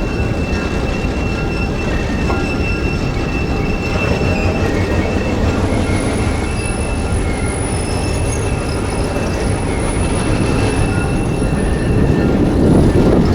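Passenger train rolling past close by: a steady rumble of the cars on the rails with several thin, high-pitched steady tones of wheel squeal above it, getting louder near the end.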